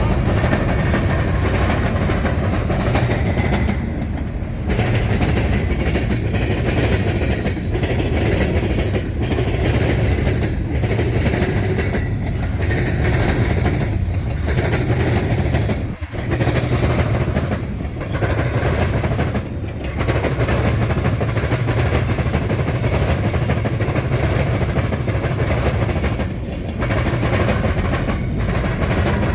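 Union Pacific freight train's cars rolling past, a steady loud rumble and rattle of steel wheels on rail, the sound dipping briefly every second or two.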